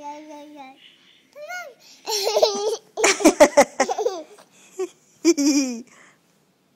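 A baby girl babbling in a high sing-song voice: a held note, gliding squeals, and a loud burst of quick, pulsing laughter about three seconds in.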